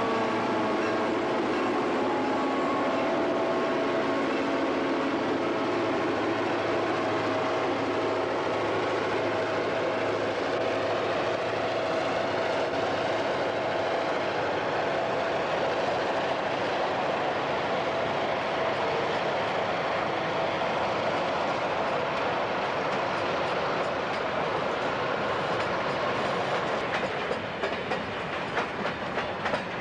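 Model train passing: the B&O GP9 diesel locomotives give a steady droning tone that fades as they go by. The trailer-laden TTX flatcars follow with a constant rolling rumble, and sharp clicks of the wheels over the track come in near the end.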